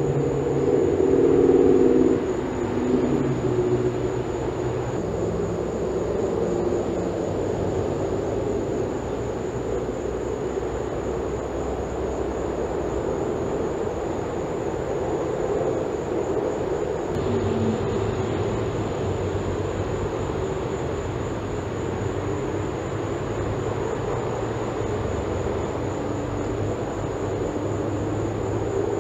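Steady low mechanical drone, louder in the first couple of seconds, with a constant faint high-pitched whine.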